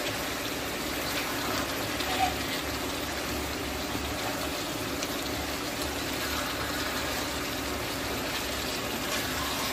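Chicken curry with potatoes sizzling steadily in a pan as it is stirred with a wooden spatula.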